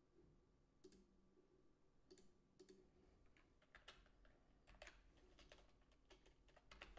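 Faint computer keyboard typing: a few scattered key clicks, then a quicker run of keystrokes from about halfway through.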